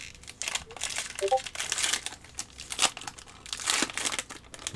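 Plastic wrapper of a Bowman Draft card pack crinkling in the hands as it is torn open, an irregular run of rustles and crackles.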